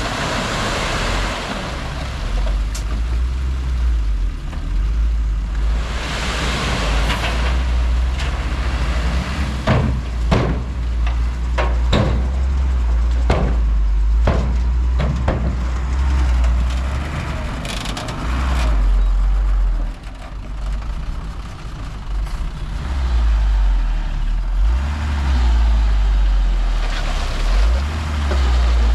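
Heavy diesel earthmoving machinery running, with a steady deep engine rumble, several bursts of hissing, and a run of sharp metallic knocks and clanks around the middle.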